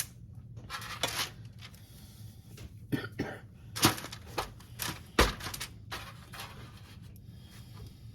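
Small clicks and rustles of candy being handled: mini M&Ms picked out and pressed into the tops of cookie dough balls on a baking tray, with a sharper knock about five seconds in.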